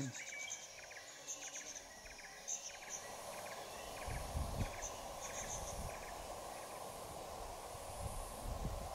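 Bush ambience: insects chirping in short, repeated trills over a steady hiss, with brief low rumbles about four seconds in and near the end.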